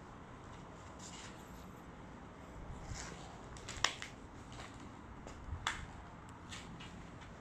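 Quiet background with a few faint, sharp clicks and taps, the sharpest about four seconds in and another just before six seconds.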